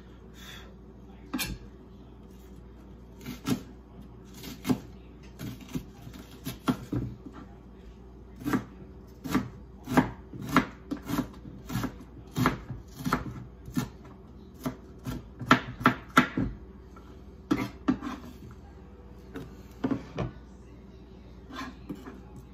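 Kitchen knife chopping an onion on a cutting board: irregular sharp knocks of the blade on the board. The strikes come sparsely at first, come fastest in the middle, then thin out again.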